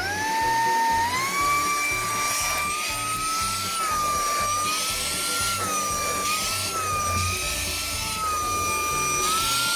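Cleanfly H1 cordless handheld cyclonic vacuum switched on, its motor whine rising as it spins up and stepping higher about a second in. It then runs with a high whine that wavers slightly in pitch while vacuuming car floor mats.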